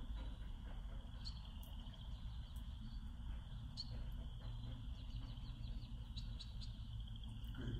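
Quiet room tone with a faint, high-pitched rippling chirp running steadily under it, and a few light scattered clicks as the dog's nails tap the hard floor.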